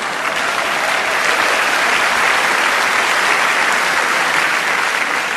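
Live audience applauding steadily, a long round of applause for a comedian's punchline.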